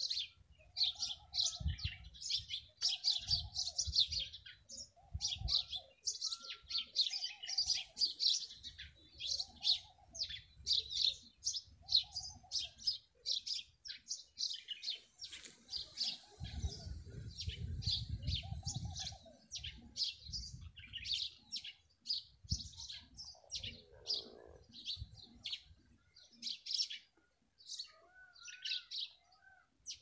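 Small birds chirping rapidly and continuously in high, short notes, with a lower, repeated call every second or two through the first half. Some low rumble comes and goes underneath.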